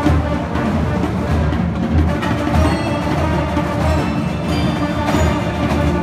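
High school marching band playing: brass with front-ensemble mallet percussion (marimbas), cymbals and drums.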